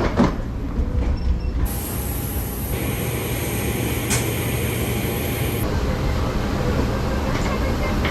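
Steady low rumble of a jet bridge underfoot during boarding, with a high hiss starting about two seconds in and stopping about six seconds in.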